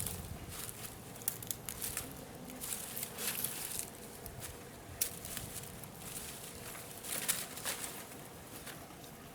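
Faint outdoor background with scattered short clicks, crackles and rustles.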